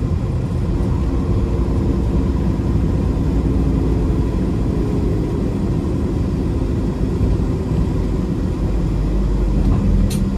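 Peterbilt 389 semi truck's diesel engine running steadily at low speed. A single sharp click comes near the end.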